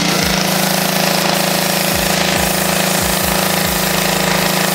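Petrol pressure washer's small engine running steadily at one speed, a loud even drone.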